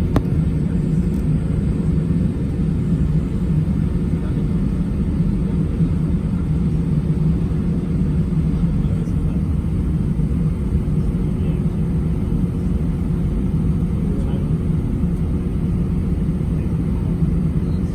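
Steady low rumble of an Airbus A319 in flight, heard from inside the passenger cabin: jet engine and airflow drone with a few faint steady tones in it.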